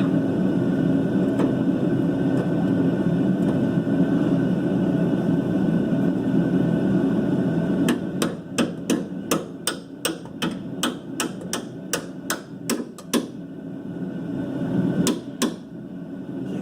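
A hammer striking rapidly on the rear shock's lower mounting bolt, about three sharp metallic blows a second, driving the bolt through the mount. The hammering starts about halfway in, after a steady low rumble, and ends with two last blows after a short pause.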